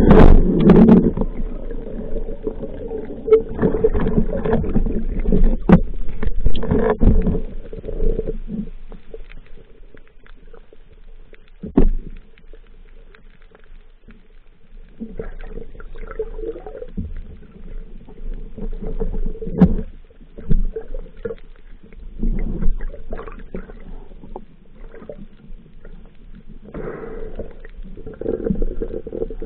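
Muffled underwater rumbling and gurgling as a diver moves through the water, with scattered knocks and clicks. It is louder in the first few seconds, drops low in the middle and picks up again later.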